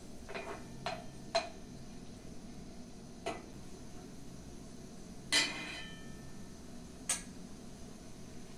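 A metal spoon clinking against a black frying pan while food is stirred: about six separate clinks, the loudest about five seconds in with a brief metallic ring.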